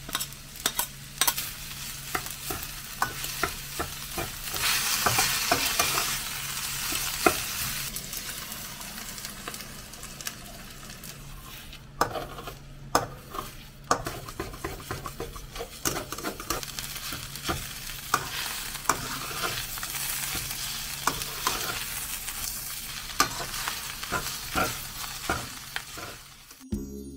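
Fried rice sizzling in a stainless steel pan while a spatula stirs it, scraping and knocking against the metal in frequent sharp clicks. The sizzle swells louder about five seconds in.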